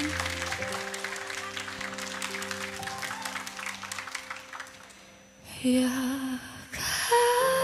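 Female singer finishing a phrase of a slow ballad, then held keyboard-and-strings chords under applause that fades out. She starts singing again about five and a half seconds in, then a second phrase near the end.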